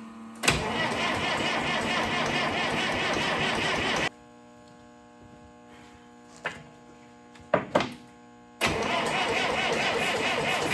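Case 830 tractor's diesel engine cranking over on the starter for about three and a half seconds, stopping, then cranking again after a pause of about four seconds with a few clicks in between. It is being started on starting fluid after a rebuilt injection pump was fitted and bled.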